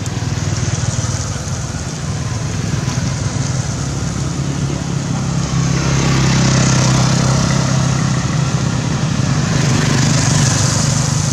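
A motor vehicle's engine running steadily, a low hum that grows louder about halfway through.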